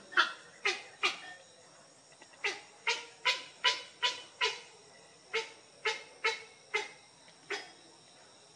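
Young heron giving a series of short, harsh, falling calls while feeding on small fish, about two to three a second in bursts of three to five with brief pauses between the bursts.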